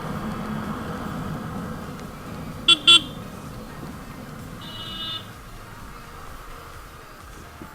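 Two short vehicle horn toots in quick succession, then a quieter, longer horn blast about two seconds later, over steady road and engine noise.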